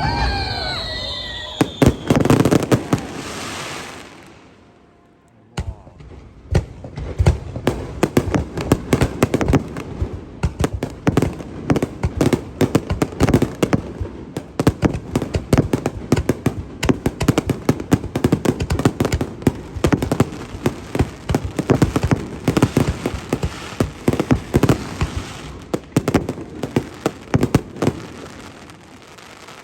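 Aerial fireworks display: a few heavy booms at the start, a brief lull about four to five seconds in, then a dense, rapid barrage of bangs and crackles, many a second. This is the closing finale of the show, and it thins out near the end.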